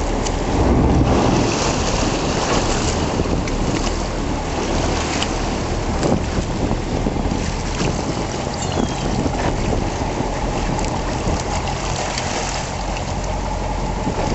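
Sportfishing boat's engine running steadily under water rushing and splashing alongside the hull as a hooked marlin thrashes at the surface, with wind buffeting the microphone.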